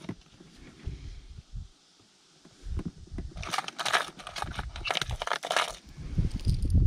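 Lures being rummaged through in an open hard plastic tackle box: a dense clatter of hard plastic wobblers against the box's compartments through the middle of the stretch, with dull handling thumps and rustle before and near the end.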